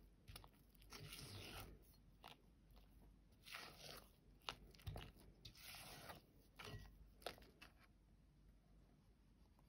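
Faint sounds of a spatula stirring and scraping soft red butter-and-egg mixture around a glass bowl: several scraping strokes about half a second long, with a few sharp clicks of the spatula against the glass.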